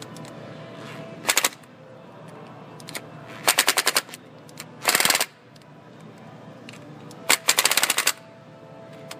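Hand socket ratchet clicking in four quick runs of rapid clicks as the thermostat housing bolts are tightened down.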